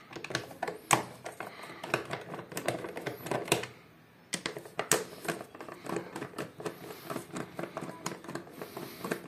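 Screwdriver turning out the screws of a Yamaha YBR 125's plastic airbox cover: a run of irregular small clicks and taps, with a brief pause about four seconds in.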